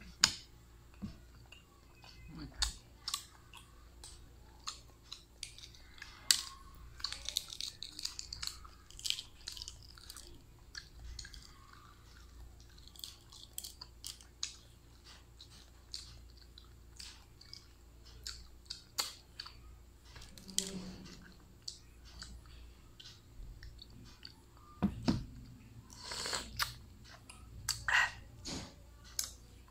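Close-up mouth sounds of a person eating balut, a boiled fertilized duck egg: irregular wet chewing, smacking and slurping, with small crackles of eggshell as pieces are picked off.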